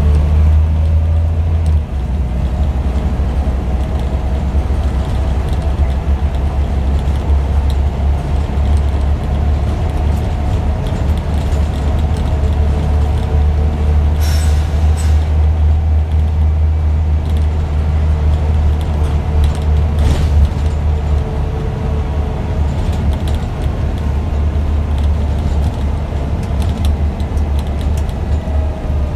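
Scania OmniDekka double-decker bus heard from inside the passenger saloon while driven hard: a loud, steady low engine drone with a faint whine that slowly rises and falls in pitch. A brief hiss comes about halfway through.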